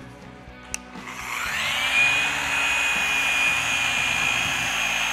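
Gloss-It Evo 12 3-inch dual-action polisher starting up about a second in, its whine rising and then holding steady as the pad works polish into a painted edge. Background music plays underneath.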